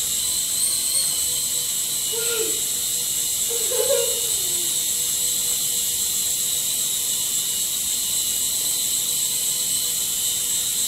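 Flutterbye Tinkerbell flying fairy toy in flight, its small electric motor and spinning wings giving a steady high-pitched buzz.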